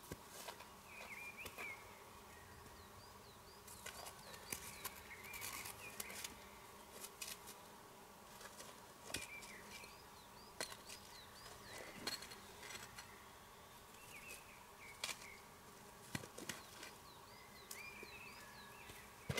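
Stones knocking and clacking now and then as they are set down by hand into a small fire ring. Small birds sing short chirping phrases every few seconds in the background.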